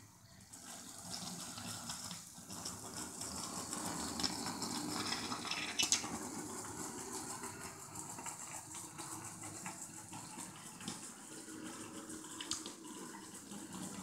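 Small DC gear motors of a Raspberry Pi robot car whirring as it drives across a laminate floor, with a few sharp clicks, the loudest about six seconds in.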